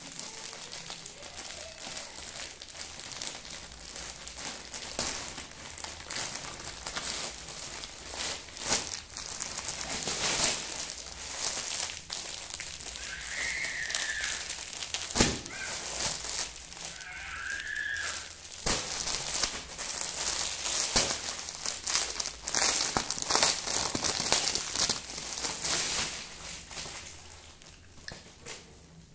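Plastic packaging crinkling and rustling as a courier pack and the clear plastic wrap around a folded saree are opened and handled. The sound comes in irregular bursts, gets busier around the middle and dies down near the end.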